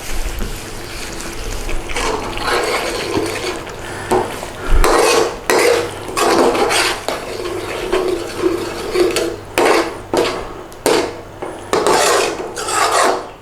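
A utensil scraping and knocking against a pan in irregular strokes as a thick curry sauce is stirred while it cooks down.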